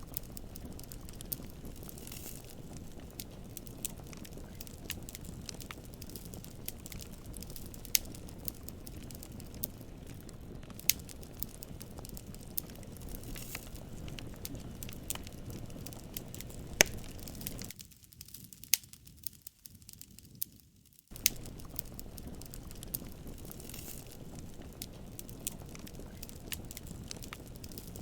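Wood fire crackling: sharp pops and snaps, a few of them louder, over a steady low rush. About eighteen seconds in it drops away almost to quiet for about three seconds, then comes back.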